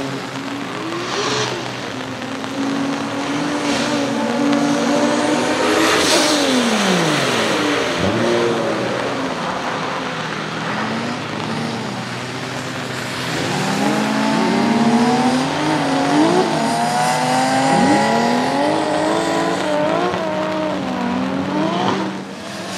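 The swapped single-turbo Toyota 2JZ-GTE straight-six of a drifting GT86, revving hard and repeatedly rising and falling in pitch as the throttle is worked through the slides. Under it is a steady hiss of tyres throwing spray off wet tarmac.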